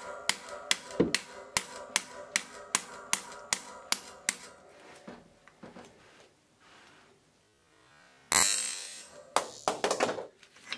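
Hammer tapping a punch against a bearing extractor to drive a sealed bearing out of a Shimano Hollowtech II bottom-bracket cup: light, evenly spaced metallic taps, about three a second, with a ringing tone between strikes, stopping after about four seconds. After a few quiet seconds there is a short burst of noise and a few faint clicks as the bearing comes free.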